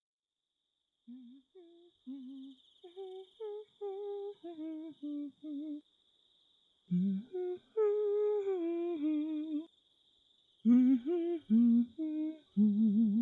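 A woman humming a slow, wandering tune in three phrases with short pauses between them, over a faint steady high cricket chirr.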